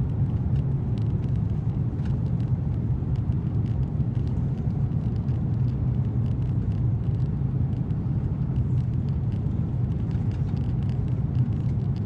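Steady low drone inside the cabin of an Airbus A330-200 airliner: its Pratt & Whitney PW4000 engines and the airflow around the fuselage, heard from a window seat.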